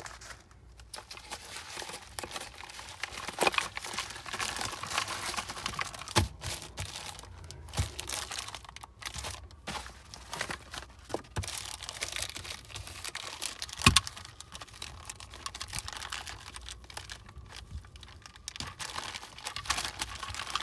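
A yellow paper mailer being torn open and its contents, plastic bags of parts, being handled, crinkling and rustling irregularly with small clicks. A single sharp knock stands out about two-thirds of the way through.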